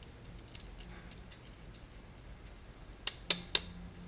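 Small metal clicks of a bicycle seat clamp's plates, bolt and nut being fitted by hand onto the saddle, ending in three sharp clicks close together about three seconds in as the clamp goes into place.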